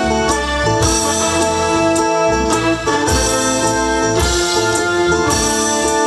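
Live band playing an instrumental interlude of a Bengali patriotic song: electronic keyboard chords held over a steady drum-kit beat.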